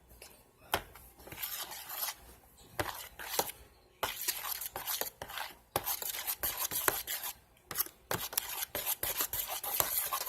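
A fork stirring glue and shaving cream in a container, scraping and clicking against the sides in quick, irregular strokes.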